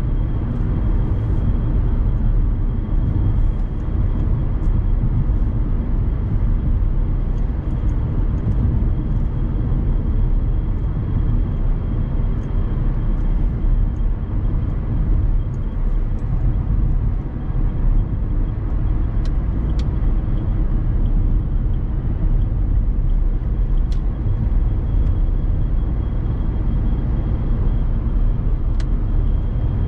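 Steady in-cabin road and tyre noise with the Dacia Sandero Stepway's 1.5 dCi four-cylinder turbodiesel running, the car driving along at an even pace. A faint steady high whine runs underneath.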